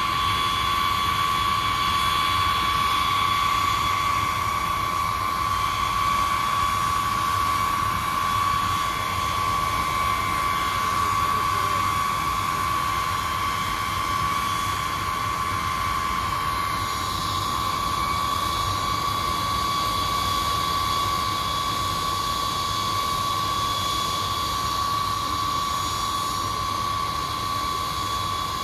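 B-52 bomber's eight turbofan jet engines running at low power, a steady high-pitched whine over a continuous rush of noise.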